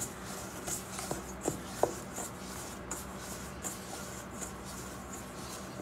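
Hands kneading soft wheat-flour dough in a stainless steel bowl: a rubbing, squishing stroke about every three-quarters of a second, with a couple of light knocks against the bowl about one and a half seconds in. A faint steady hum runs underneath.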